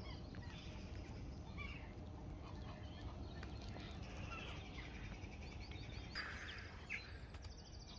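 Faint outdoor birdsong: scattered chirps and short trills over a low, steady background rumble, with a brief rustle about six seconds in.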